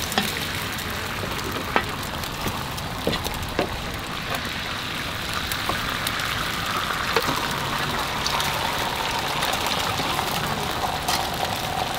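Beaten egg sizzling on a hot oiled flat-top griddle, a steady hiss that grows a little stronger partway through. A few sharp clicks of a metal spatula against the griddle.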